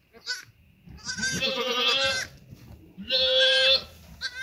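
Newborn goat kids bleating: a brief call, then two long, high bleats about a second in and about three seconds in, and a short one at the end.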